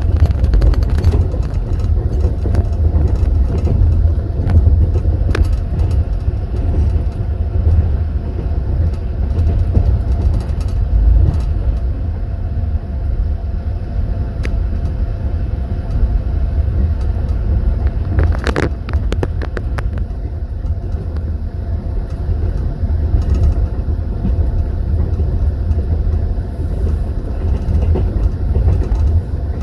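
Steady low rumble of a passenger train carriage running on the rails, heard from inside a compartment. A few sharp metallic clinks stand out, with a quick run of them about eighteen seconds in.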